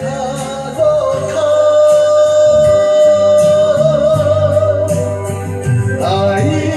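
A man singing a Japanese ballad through a karaoke microphone over a backing track, holding one long note from about a second in until about five seconds, with a waver near its end.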